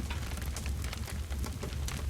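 Campfire burning, with dense irregular crackles and pops over a steady low rumble of the flames.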